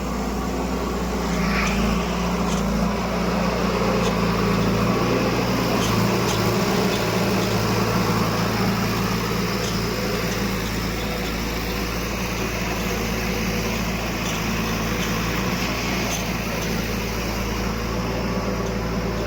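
Heavy diesel engine running steadily, growing a little louder about two seconds in, with a few faint clicks over it.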